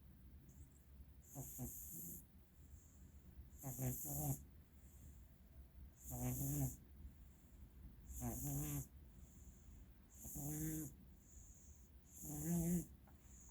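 Domestic cat snoring in its sleep: six short, pitched, buzzing snores about two seconds apart. The owner puts the snoring down to the cat's very bad allergies.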